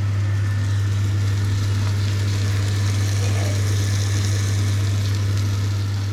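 A motor running with a steady, unchanging low hum, with an even hiss over it.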